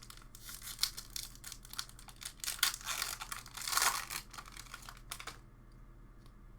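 A booster pack's foil wrapper being torn open and crinkled by hand: a run of crackling and rustling that is loudest a little past the middle and stops about a second before the end.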